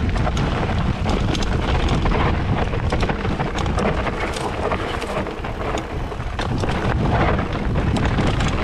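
Wind buffeting the microphone as a mountain bike rolls downhill over a rocky gravel trail, the tyres crunching on stones, with many short clicks and rattles from the bike.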